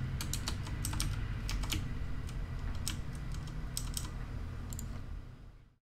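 Computer keyboard keys clicking at an irregular pace, over a low steady hum. The sound cuts out abruptly near the end.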